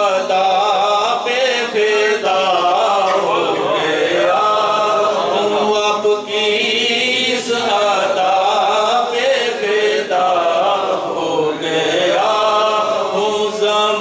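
A man singing an Urdu naat (devotional poem in praise of the Prophet) unaccompanied into a microphone, in long, melismatic phrases with short breaks for breath.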